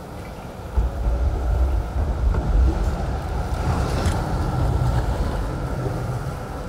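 Outdoor city street noise: a heavy low rumble that comes up about a second in and holds, with wind buffeting the microphone and a faint steady high tone underneath.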